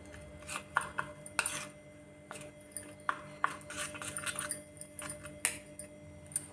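A metal spoon clinking and scraping in a steel pan as ghee is stirred into grated ginger and jaggery: irregular light knocks, some with a short ring.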